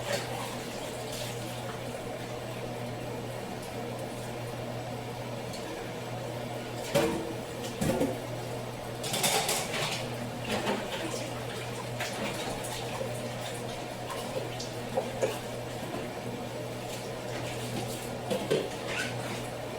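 Dishes and utensils clinking and knocking now and then in a kitchen, over a steady watery hiss and low hum.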